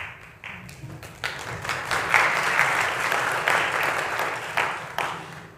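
A congregation applauding. The clapping swells about a second in and dies away near the end.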